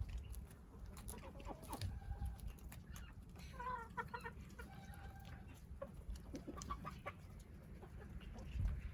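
Chickens clucking softly, with a few short calls in the middle and again near the end, over a low rumble.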